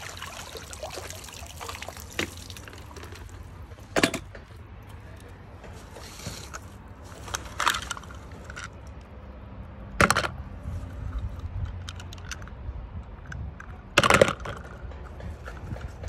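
Pool leaf-skimmer net lifted out of the water, water splashing and dripping off the mesh for the first few seconds. Then four sharp knocks, spread over the rest, as the plastic net frame and its load are handled at the poolside.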